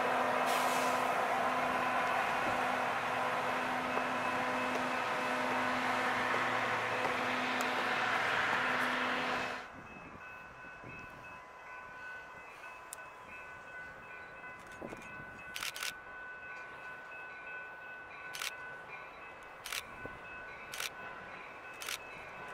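A train rolling past, a steady din with a few held tones, cuts off abruptly about ten seconds in. After that the scene is much quieter, with faint steady high tones and scattered sharp clicks.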